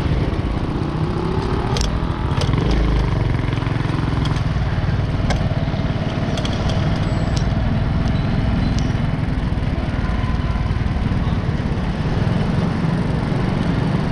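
Road traffic with small motorcycle engines running steadily, a rising engine rev about two seconds in, and a few short sharp clicks.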